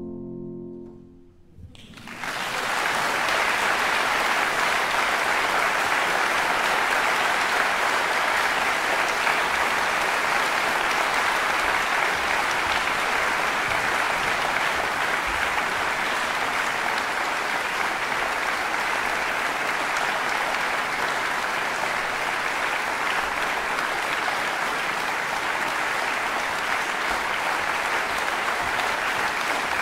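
The last low notes of a Steinway grand piano die away, and about two seconds in a concert audience breaks into steady, sustained applause.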